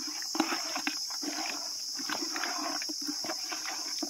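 Wet squelching and squishing of hands kneading fish pieces in a thick masala paste inside a plastic bucket, in quick irregular squishes, over a steady high buzz.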